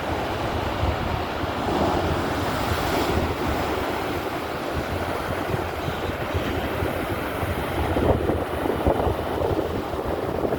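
Stormy sea surf: a steady rush of waves breaking, with strong wind buffeting the microphone.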